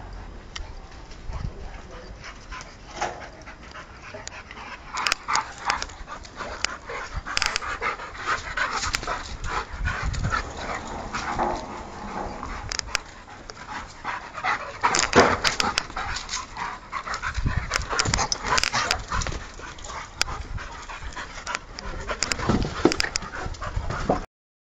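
Two small dogs playing together, a busy run of many short, sharp sounds in quick irregular succession. The sound cuts off abruptly near the end.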